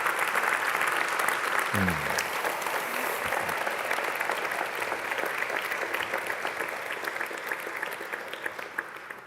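An audience applauding, the clapping gradually dying away toward the end.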